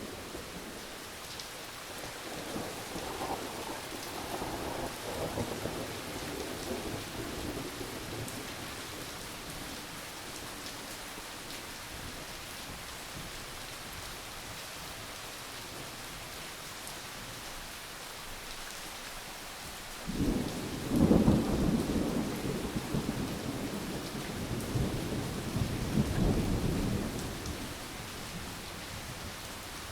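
Steady rain falling, with rolling thunder: a soft low rumble a few seconds in, then a louder clap that starts suddenly about two-thirds of the way through and rumbles on for several seconds.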